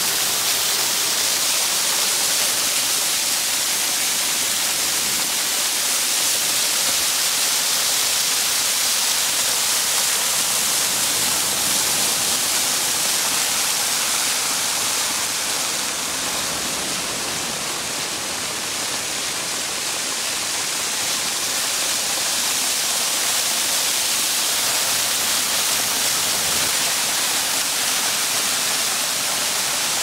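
Waterfall pouring down a rock cliff and splashing onto the beach: a steady rushing hiss of falling water, a little quieter for a few seconds midway.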